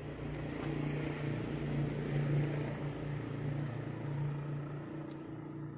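A motor engine running with a steady low hum, growing louder toward the middle and fading near the end.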